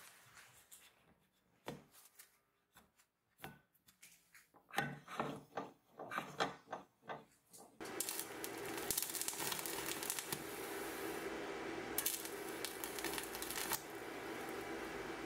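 Scattered clicks and knocks of metal parts being handled, then, about eight seconds in, the steady crackle and hiss of stick (arc) welding as an electrode burns along the seam of a patch in galvanized steel sheet, louder in stretches.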